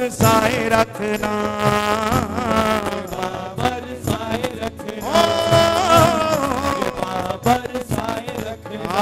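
Male voices singing a Hindi devotional bhajan live, with instrumental accompaniment: two long sung phrases with a short break between them about four seconds in.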